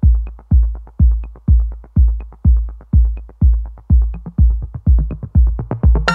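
Electronic background music: a steady, deep kick drum about two beats a second with light ticking percussion between the beats.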